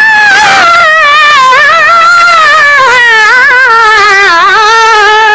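A singer holding one long, wordless, ornamented note of a devotional qaseeda, the pitch wavering throughout and slowly falling.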